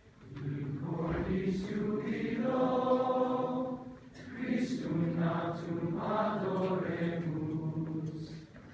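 A choir singing a Latin carol in held, chant-like phrases, with a short breath between phrases about four seconds in.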